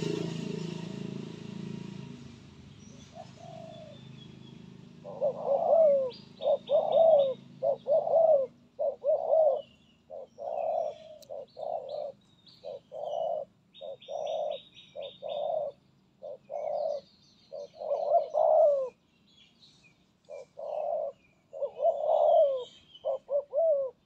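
Spotted doves cooing in a long run of short, repeated coo notes, starting about five seconds in, with thin high chirps of other small birds above them. A low rumble fades away over the first few seconds.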